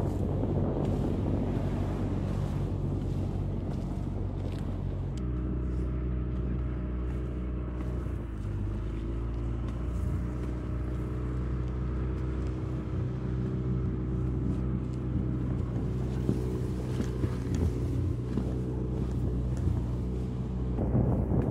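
Boat outboard motor running steadily under way, its note changing about five seconds in, with wind and water noise over it.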